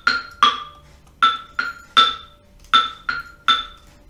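Background music: a tuned percussion figure, one ringing note struck three times in quick succession, the group repeating about every one and a half seconds.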